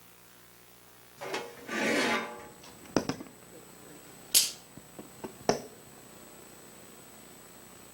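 A rustling noise followed by several sharp knocks and clicks, the loudest about four and a half seconds in, then quiet room tone.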